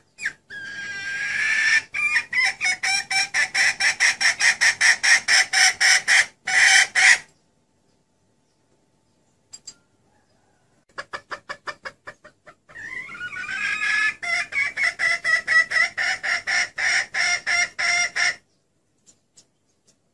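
Female red junglefowl (hen) calling: a rapid run of clucks, about four a second, in two long bouts with a few seconds' pause between. It is a lure call for drawing in wild males.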